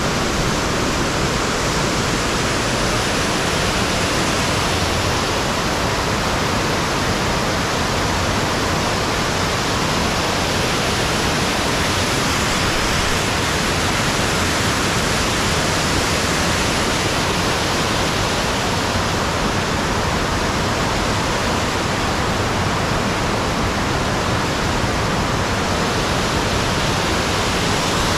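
Buttermilk Falls' water rushing in a steady, loud, unbroken roar.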